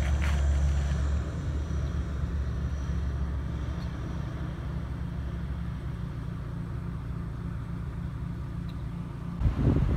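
Airliner engines rumbling as the plane moves away, fading slowly, with a faint high whine early on. About nine and a half seconds in, the sound changes suddenly to gusty wind on the microphone.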